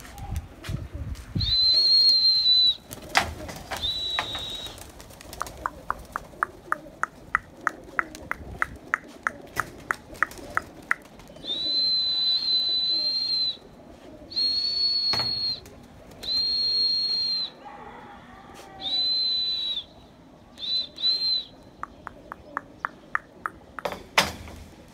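A pigeon keeper's steady, high-pitched whistle blasts, each about a second long, repeated about seven times, the pigeon flyer's signal to keep the young high flyer pigeons up and circling. Between the whistles come runs of quick, regular clicks, about four a second, and a few sharp knocks.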